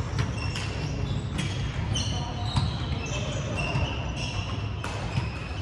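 Badminton rackets striking shuttlecocks in sharp, irregular clicks, with short squeaks of court shoes on the hardwood floor, echoing in a large gym.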